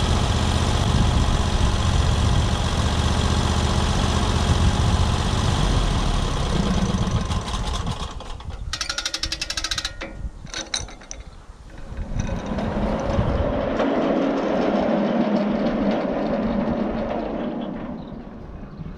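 Sawmill engine running steadily while it cuts a cedar log. About eight seconds in the sound changes to a rapid clatter, then a lower, mid-pitched running sound that fades near the end.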